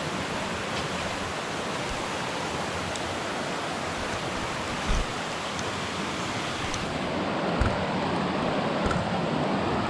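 Shallow mountain creek rushing over rocks: a steady rush of water, with two short low thumps, one about halfway through and one later on.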